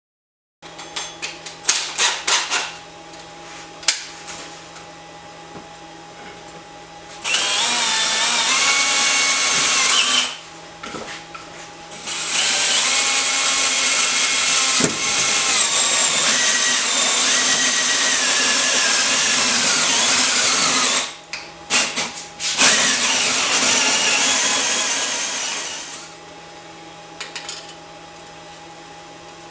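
Electric drill running in three long bursts, its motor pitch shifting under load as it bores through a plate, after a few sharp handling knocks. A steady low hum runs underneath.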